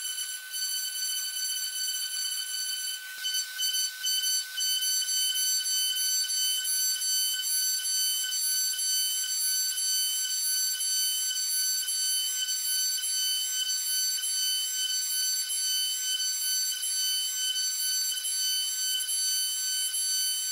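Spindle of a Woodpecker DP1212 CNC router (2.2 kW, 24,000 RPM) running with a steady high whine while a fine engraving bit cuts into brass, with a few brief dips in loudness about three to four seconds in.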